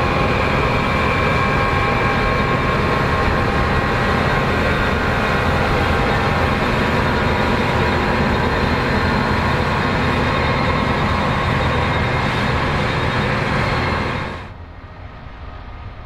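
New Holland combine harvester running steadily while harvesting barley, a dense machine noise with several steady whining tones on top. About fourteen and a half seconds in it drops suddenly to a much quieter, duller sound.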